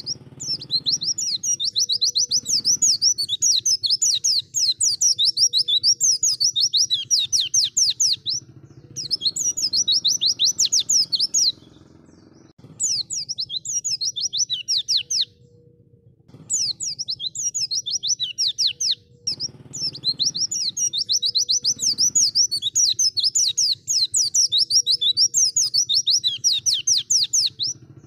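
White-eye (pleci) singing a long, fast twittering song of rapid high chirps, broken by short pauses about 12 and 15 seconds in.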